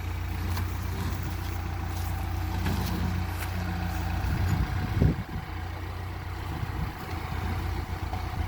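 JCB 3DX backhoe loader's diesel engine running steadily with a low rumble, with one loud knock about five seconds in.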